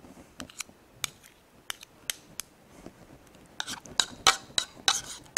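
Two spoons clinking against each other and the rim of a bowl while a soft, creamy cheese mixture is scooped and shaped between them. The light clicks are scattered at first, then come quicker and louder over the last couple of seconds.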